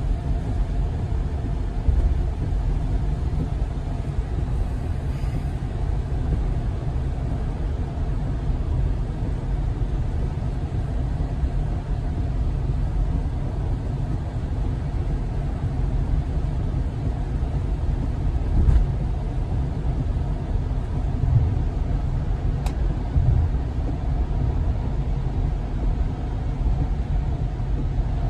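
Tesla Model Y cabin noise at highway speed on a wet road: a steady low rumble of tyres and road, with no engine note, broken by a few brief thumps.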